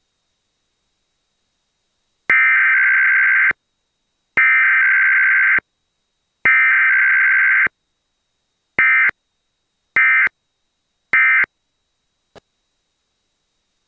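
Emergency Alert System SAME data bursts: three long, buzzy digital header bursts about a second apart, then three short end-of-message bursts, for a Required Weekly Test with no attention tone between them. A faint click comes near the end.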